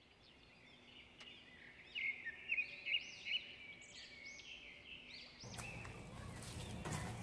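Birds chirping: a run of short, high, arched calls repeated about twice a second, fading in from silence. From about five and a half seconds a steady outdoor background noise comes in under them.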